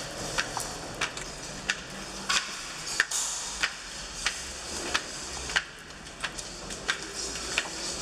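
Footsteps climbing a wooden staircase: a steady tread of sharp knocks, about three steps every two seconds.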